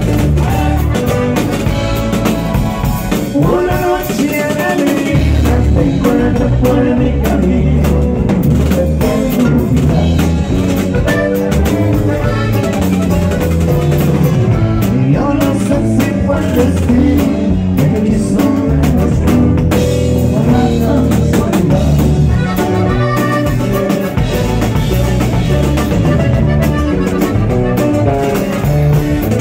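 Norteño music played live: a Jomavi button accordion playing quick melodic runs over a steady drum-kit beat and guitar.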